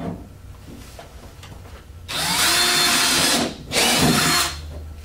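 Cordless drill drilling a hole through a black plastic enclosure wall: it starts about two seconds in, runs for about a second and a half, stops briefly, then runs again for under a second.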